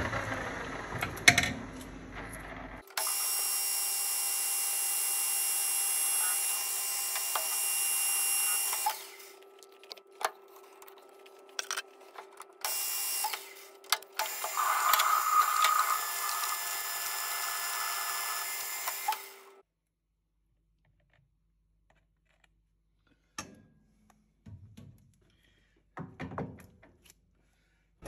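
Metal lathe spinning a stainless steel hammer head in a four-jaw chuck while a tailstock drill bores a cross hole: a steady running noise with several high steady tones. It runs twice, with a few seconds of clicks between, and stops about two-thirds of the way through. Near the end there are only a few light knocks of handling.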